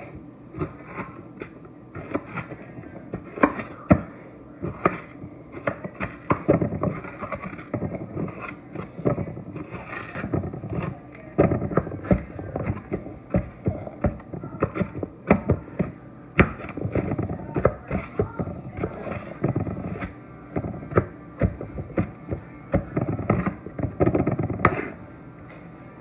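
Kitchen knife chopping an onion on a cutting board: a long run of uneven knocks of the blade against the board, with some scraping.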